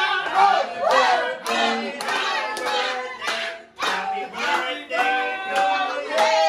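Several people singing together and clapping along.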